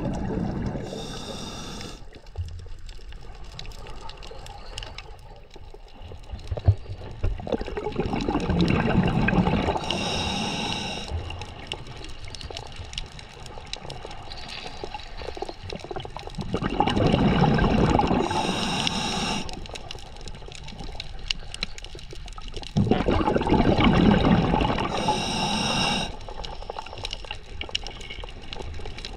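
Scuba diver breathing through a regulator underwater: a short hiss on each inhale and a longer, louder bubbling rush on each exhale, repeating about every seven to eight seconds, four breaths in all.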